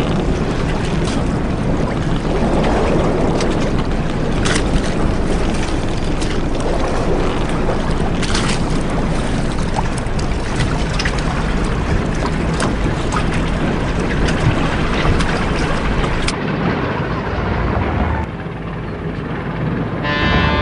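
Harbour ambience: a boat's engine running steadily under wind and splashing water, with occasional knocks. Near the end the sound turns duller, then drops for a moment.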